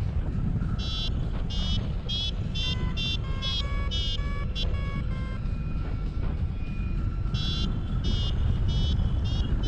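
Wind rushing over the microphone of a paraglider in flight, with a variometer beeping in quick pulses whose pitch steps up and down as it signals the climb in a thermal.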